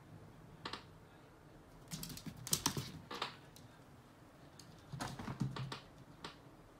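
A cat's paws and claws clicking and skittering on a hard wood-look floor as it runs, in quick rattling clusters about two seconds in and again about five seconds in.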